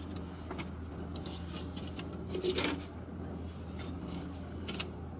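Soft rustling and a few faint scrapes of a disinfecting wipe being handled and rubbed over the hands, the loudest a little past halfway. Under it a car's engine or air conditioning runs with a steady low hum.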